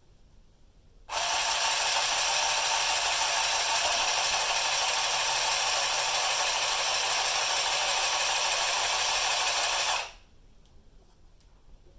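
Handheld sewing machine running and stitching through cloth: a steady, loud mechanical rattle that starts about a second in and stops sharply about nine seconds later.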